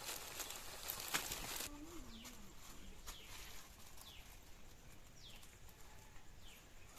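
Radish pakoras deep-frying in a wok of hot oil, a dense crackling sizzle that cuts off about a second and a half in. Then quieter outdoor background with a bird giving about five short falling chirps, one every second or so, and a brief low wavering call near the start of that stretch.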